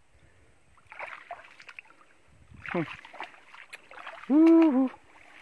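Tall grass rustling and brushing as a person pushes through it carrying a bamboo fish trap. Near the end comes one loud hoo-like call, lasting about half a second, that rises slightly and drops at its end.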